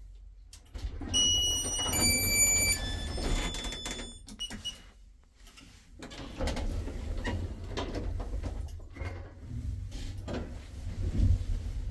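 Marrocco hydraulic lift arriving at a floor: a low rumble from the car as it settles, and an electronic arrival chime of a few stepped tones. About six seconds in, the doors open with a mechanical rumble and clicks.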